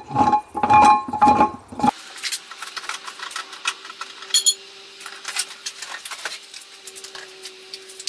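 Scattered metal clinks and knocks from a spare wheel and its hold-down being handled and lifted in a car's trunk, with one ringing clink about halfway, over a faint steady hum.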